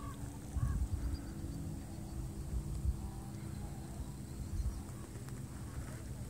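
Wind buffeting the microphone: an uneven, gusty low rumble. A few faint short calls show up near the start and again later.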